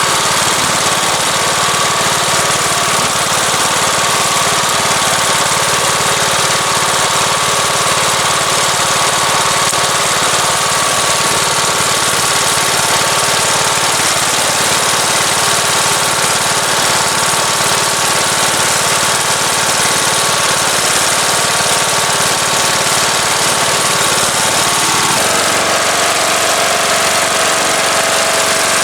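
Turf-Power lawn tractor's small engine running steadily, back to life after its throttle linkage was refitted; its note shifts about 25 seconds in.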